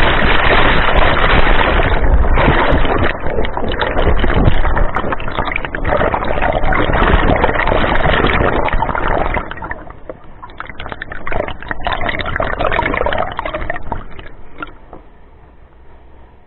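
Turbulent river water rushing and churning below a waterfall, heard by an action camera in its waterproof housing underwater. The rush is loud for the first nine seconds or so, then surges and eases, and dies down to quieter gurgling near the end as the water calms.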